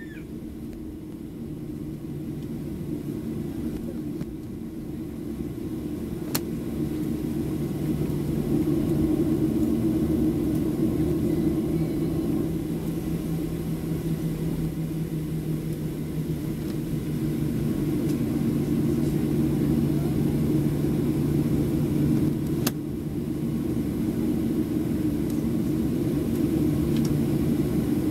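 Boeing 737-700's CFM56-7B jet engines heard from inside the cabin while taxiing: a steady low hum that grows louder over the first several seconds and then holds. A sharp click comes about six seconds in and another later on.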